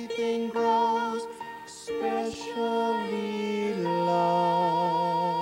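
Closing bars of the film's end-credits song: a slow melody of held notes that settles onto one long sustained note a little under four seconds in.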